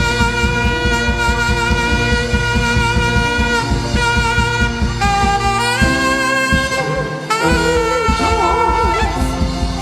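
Instrumental gospel music: a saxophone-like lead holding long notes over a steady drum beat. The beat drops out for a moment about six seconds in, then returns.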